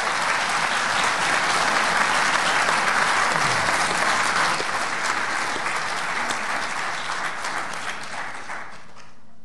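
Audience applauding, a dense patter of many hands clapping that slowly thins out over the last few seconds.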